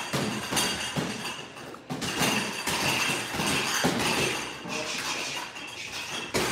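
Background music with scattered taps and thumps.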